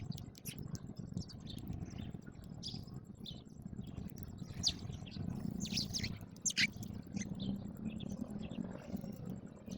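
House sparrows chirping: many short, overlapping chirps, busiest around the middle, over a steady low background noise.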